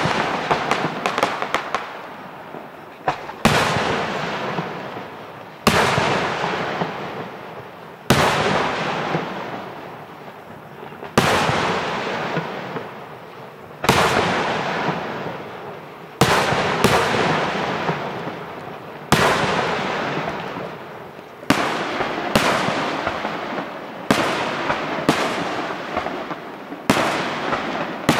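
Aerial firework shells bursting in a pyrotechnic display: a quick run of crackling pops at the start, then about a dozen loud bangs every two to three seconds, each trailing off over a couple of seconds.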